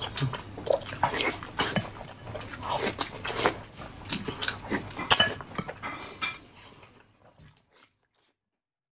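Close-up mouth sounds of eating: slurping spicy chili broth from a wooden spoon and chewing boiled egg, in irregular wet smacks and slurps. The sounds die away about seven seconds in and stop.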